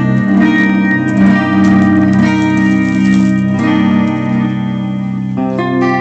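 Yamaha Pacifica electric guitar played clean through a Digitech RP7 Valve chorus-delay patch and a small practice amp: sustained, ringing chords that change twice.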